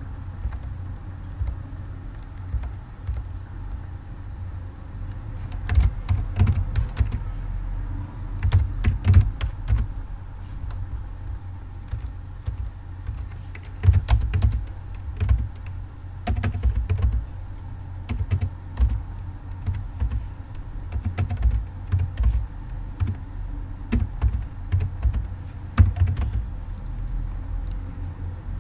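Typing on a computer keyboard: irregular bursts of keystrokes with short pauses between, over a steady low hum.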